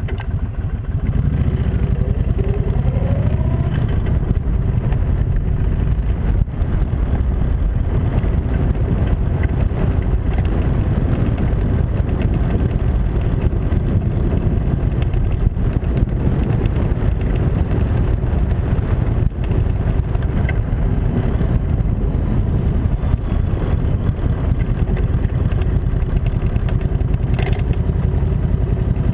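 Kawasaki Mean Streak's V-twin engine running steadily under way, heard from the motorcycle itself, with the revs rising briefly about two to four seconds in.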